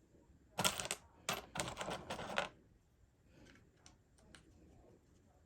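Small parts of an RC car differential clicking and clattering as they are handled and fitted into the axle housing: a dense run of clicks from about half a second in, lasting about two seconds, then a few light ticks.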